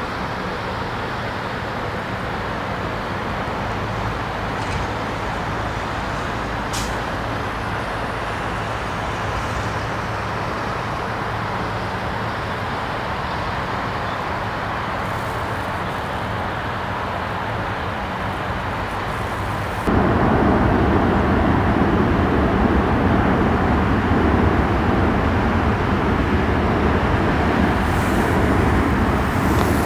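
Steady rushing engine and traffic noise with low hums underneath; about two-thirds of the way through it cuts abruptly to a louder, fuller rush.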